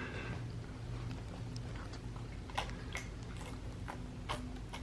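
Capuchin monkey drinking juice: a few faint, short wet clicks and smacks at irregular intervals.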